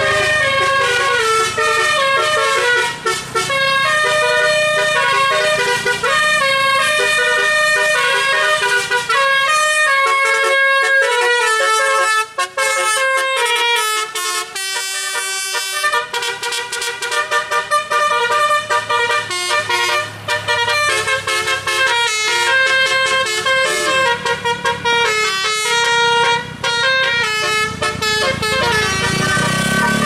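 Multi-tone 'telolet' musical air horn on a customised Toyota Avanza playing a long tune, its notes stepping up and down in pitch, with a short break about twelve seconds in.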